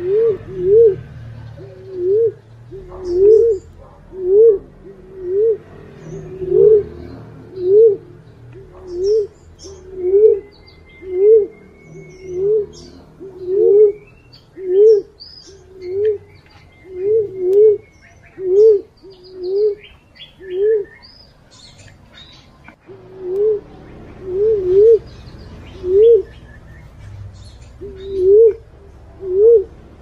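Punai walik (fruit dove) lure call: a short low coo that rises and falls, repeated about once a second and sometimes in quick pairs, with a pause of about two seconds roughly three-quarters of the way through. Faint twittering of other birds sits behind it.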